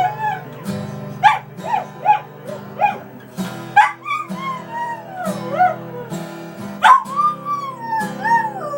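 A dog howling in long notes that glide up and down, over guitar music played in a blues style.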